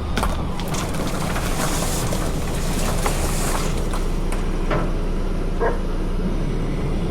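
A motor vehicle's engine running steadily with a low hum, with a few light knocks and a brief hiss over it.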